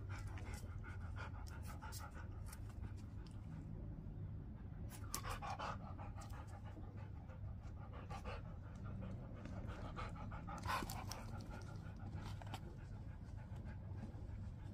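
A dog panting in a steady rhythm, with two brief louder noises about five and eleven seconds in.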